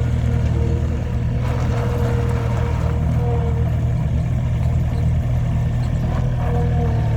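2017 Gehl 3640 skid steer loader's diesel engine running steadily, a constant low hum with a faint higher tone that comes and goes.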